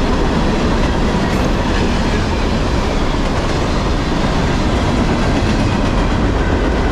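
Freight cars of a passing CSX manifest train, mostly covered hoppers, rolling by at speed: a loud, steady rush of steel wheels on rail with clickety-clack.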